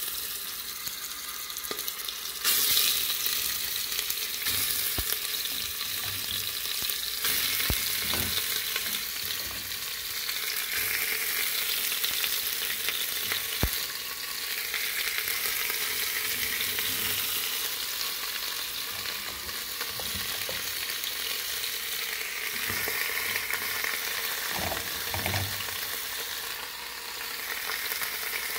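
Pork ribs and pork belly pieces sizzling as they sear in the bottom of an open pressure cooker, the sizzle getting louder about two and a half seconds in as more meat goes in. A few sharp clinks of a fork against the pot.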